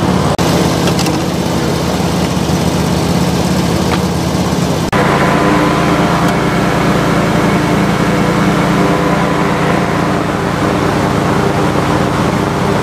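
Small engine on a bowfishing boat running steadily: a constant, loud drone. It breaks off for an instant near the start and again about five seconds in, then runs on with a slightly changed tone.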